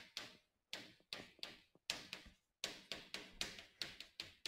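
Chalk writing on a chalkboard: a run of faint, irregular short taps and scrapes, several a second.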